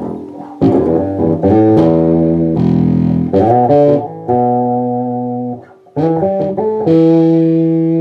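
Custom-built electric bass with Seymour Duncan passive pickups played through an amplifier on the bridge pickup alone with the tone control fully up: a short phrase of plucked notes, several held and left ringing, with a brief pause about six seconds in.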